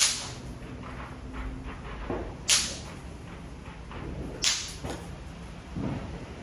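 Fireworks going off, three sharp hissing cracks about two seconds apart, with fainter low knocks between them.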